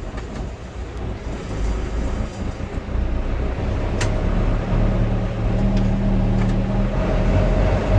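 A motor vehicle engine running, with a low rumble that grows louder from about three seconds in and settles into a steady hum. There is a single sharp click about four seconds in.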